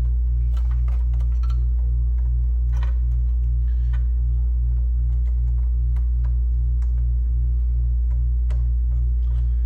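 Scattered light clicks and knocks of hard plastic and metal computer parts being handled and fitted into a Macintosh Classic's case, over a steady low hum that pulses about three times a second.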